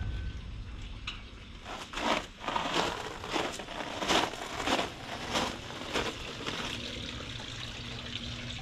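Footsteps crunching on gravel at a steady walking pace, a step about every half-second, dying away a couple of seconds before the end.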